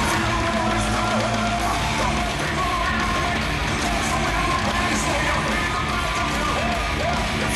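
Loud rock music with a singer playing over a big arena sound system, with yelling mixed in.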